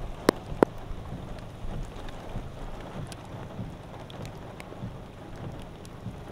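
Storm rain and wind as a steady rushing noise, with scattered sharp ticks and two loud sharp cracks within the first second.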